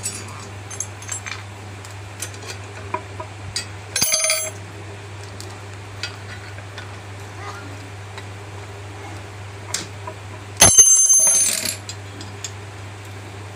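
Metal parts and tools clinking while a manual ROPP capping machine's handwheel and handle are fitted: light ticks and taps, with two bright ringing metallic clanks, one about 4 seconds in and a longer one near 11 seconds. A steady low hum runs underneath.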